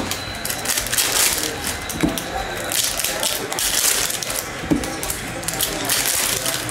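Panini NBA Hoops trading-card pack wrappers crinkling and tearing in the hands, with cards rustling as they are pulled out and flipped through; an irregular crackly rustle.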